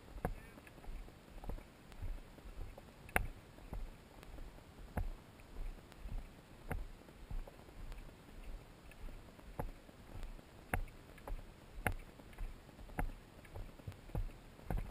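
Footsteps on a dirt trail, heard from a camera worn by the walker: even footfalls a little under two a second over a low rumble.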